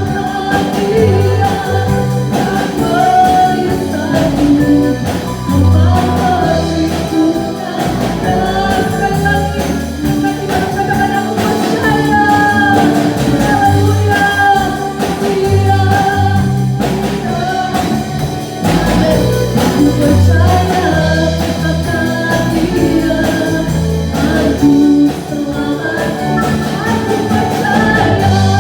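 Christian worship song: voices singing a melody over steady instrumental accompaniment with a bass line.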